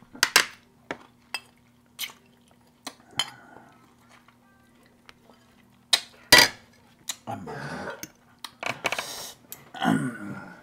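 Cutlery knocking and scraping against dinner plates while eating: scattered sharp clinks, with a couple of longer scraping stretches in the second half.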